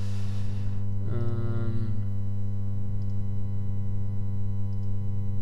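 Steady electrical mains hum in the microphone signal, with a breath at the start and a short hummed "hmm" about a second in.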